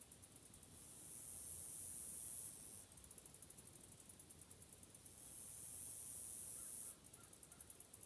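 Faint, very high-pitched insect buzzing that switches back and forth between trains of rapid pulses and a steady, unbroken buzz.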